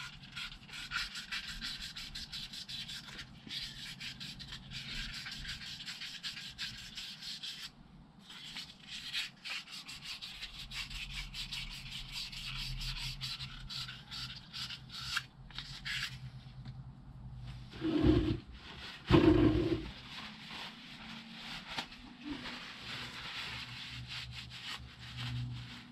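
Very fine wet-and-dry abrasive paper, wetted with paraffin, rubbed back and forth over a motorcycle's rear suspension pins, making a continuous scratchy rasp in quick strokes. It pauses briefly, then two thumps come about eighteen and nineteen seconds in.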